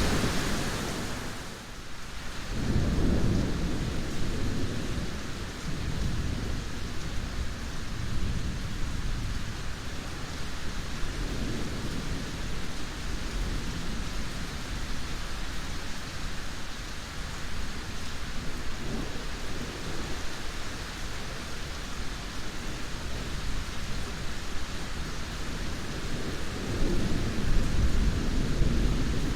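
Steady rain with low rolls of thunder rumbling several times, the strongest just after the start and near the end.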